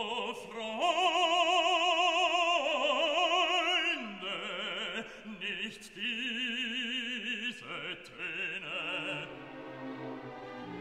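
Operatic singing with orchestral accompaniment: a voice holds long notes with wide vibrato, loudest in the first few seconds and softer after.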